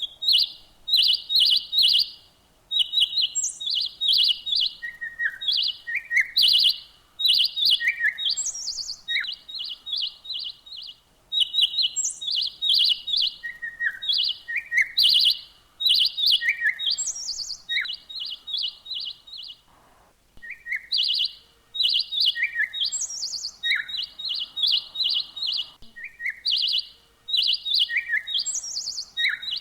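Small songbirds chirping in quick runs of rapid high repeated notes, each run about a second long, with lower down-slurred notes and higher rising notes mixed in. The runs keep coming with only brief pauses.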